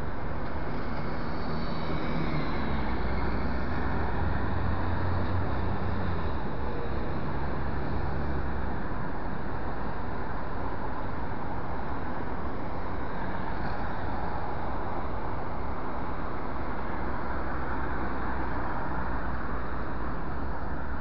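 Road traffic with city buses and cars passing: a steady hiss of tyre and street noise under a low engine rumble. The rumble swells from about two seconds in to about nine seconds in.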